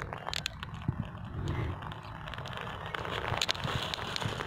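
Glass marbles rolling down a dirt track: a gritty rolling noise with scattered light clicks and crackles.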